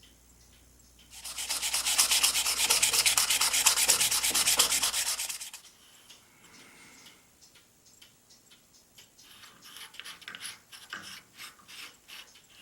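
Rapid back-and-forth sanding strokes, abrasive paper rubbing hard for about four seconds and then stopping. Lighter scattered rubbing and small clicks follow near the end.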